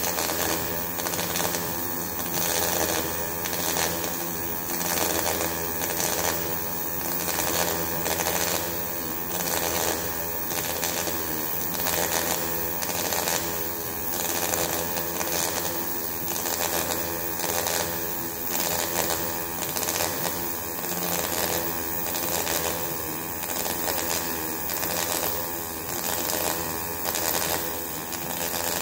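MAG welding arc crackling steadily while running a vertical-up weld, the crackle swelling and easing about once a second.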